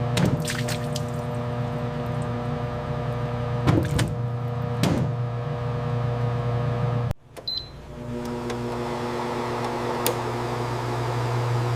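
Steady electric hum of food-processing machinery, with a few short knocks and clatters. The hum breaks off sharply a little past seven seconds and then starts again.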